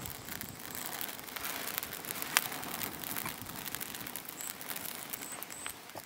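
Small campfire catching: pine needles and tinder under a split log crackling with quick ticks and pops, one sharp pop about two and a half seconds in.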